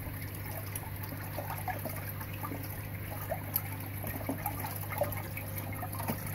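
Water trickling and splashing into a round pond filter's chambers, with scattered small drips. A steady low hum runs underneath.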